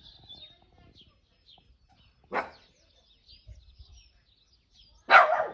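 A dog barking twice, a short bark about two seconds in and a louder, longer one near the end, over faint high bird chirping.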